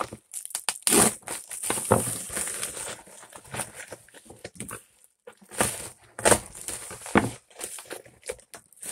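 A plastic mailer bag crinkling and crackling in irregular bursts as it is handled and opened by hand.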